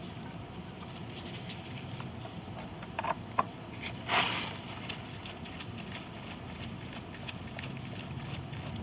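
Quiet outdoor background with two light clicks about three seconds in and a brief scraping rustle a second later, handling noise while working on the mower.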